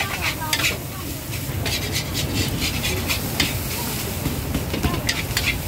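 Metal cooking utensils clinking and scraping in repeated short strokes, over indistinct voices and a low steady rumble.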